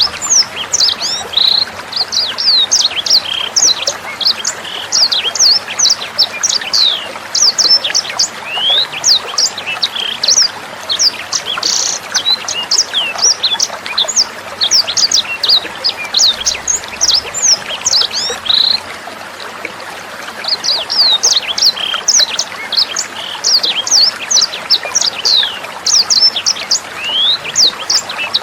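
Sanger songbird singing rapid, high chirps and twittering phrases in a dense stream, with a brief pause about two-thirds of the way through, over steady trickling water.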